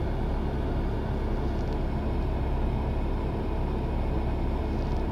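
Steady low rumble of a vehicle's engine idling, heard from inside the cabin.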